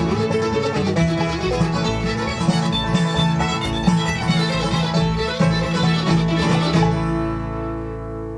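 Bluegrass band of banjo, mandolin, guitar and bass playing a fast picked instrumental, which ends about seven seconds in on a final chord that rings on and fades.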